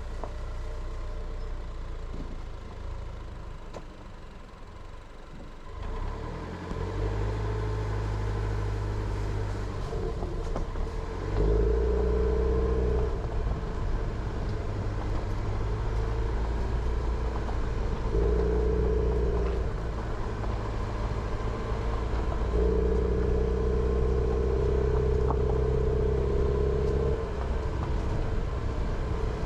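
Jeep Renegade driving along a forest road: low engine and road rumble. About six seconds in, the engine note grows stronger, then rises and falls several times as the throttle is opened and eased.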